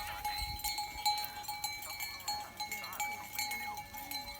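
Livestock bells worn by goats ringing with repeated clinks, over a few goat bleats.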